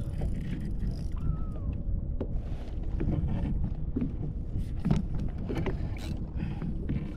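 Wind on the microphone and water moving around a kayak, with scattered clicks and knocks from a spinning rod and reel being handled while a fish is played. There is a brief squeak about a second in.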